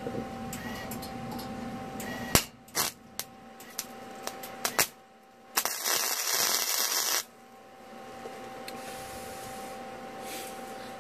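Wire-feed welder arc: a few sharp crackles as the arc starts and stops, then a short weld bead sizzling and crackling for about a second and a half, the loudest sound here.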